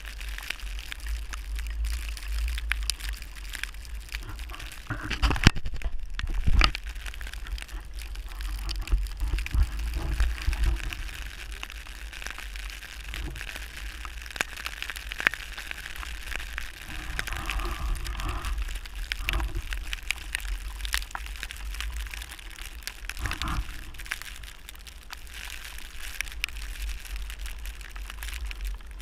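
Wind rumbling on the microphone over a steady hiss of snow, with many small ticks and a few louder knocks about five to seven seconds in.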